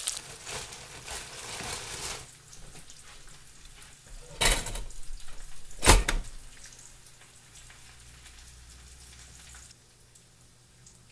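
Eggs sizzling in hot oil in a frying pan for about two seconds, then two sharp clacks from a white pop-up toaster being worked, the louder one about six seconds in. A faint low hum follows.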